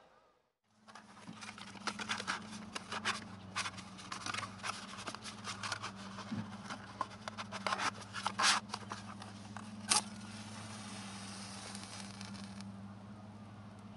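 Irregular clicks and scrapes of things being handled, over a steady low hum; the clicking stops after a sharp click about ten seconds in, leaving the hum.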